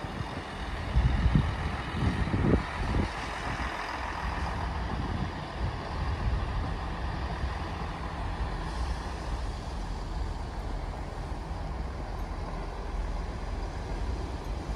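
Diesel passenger train's engine running with a steady low drone as the train moves slowly along the platform, with a few louder low knocks about one to three seconds in.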